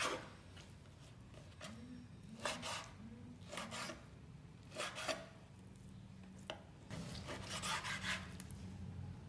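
A chef's knife slicing raw beef on a bamboo cutting board: several separate strokes as the blade draws through the meat and meets the wood, the longest near the end. A low steady hum runs underneath.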